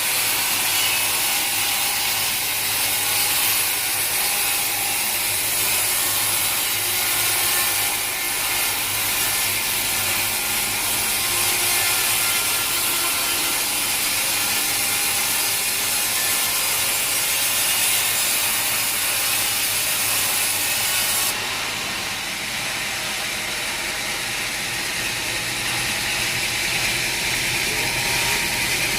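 A sawmill saw running steadily through a large log, the wood being sawn. About two-thirds of the way in, the sound changes abruptly and loses some of its hiss.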